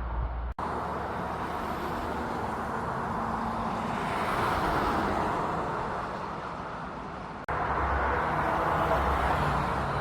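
Outdoor road traffic noise, swelling as a vehicle passes about four to five seconds in. The sound drops out for an instant twice, about half a second in and near the three-quarter mark.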